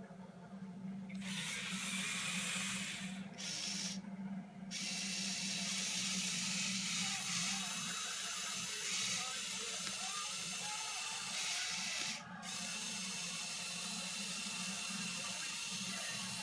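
Small electric motors and plastic gears of a motorized Lego Technic Volvo L350F wheel loader model whirring. The whir stops and restarts near the start, again a few seconds in, and briefly past the middle.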